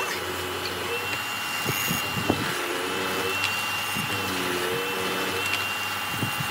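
Hollow-chisel mortiser running, its electric motor giving a steady hum with a thin high whine, while the square chisel and auger bit cut into a weathered railroad timber. The tone rises and falls as the bit takes load, with a few sharp knocks, one about two seconds in and another about four seconds in.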